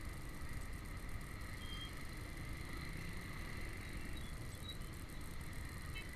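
Steady road and traffic noise heard from a moving small motorcycle, with a heavy low rumble of wind on the microphone.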